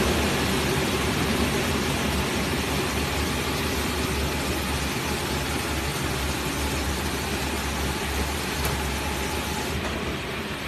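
Automatic inline piston filling and screw capping machine running: a steady mechanical hum with a broad hiss over it and a single sharp click a little before the end, after which the hiss drops away.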